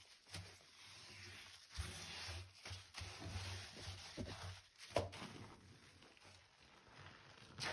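Soapy water and foam in a sink squelching and sloshing under a gloved hand, with soft thumps and a sharper wet splash about five seconds in.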